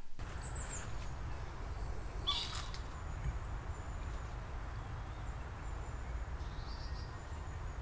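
Steady low background rumble, with a few faint high chirps and one brief higher sound about two seconds in.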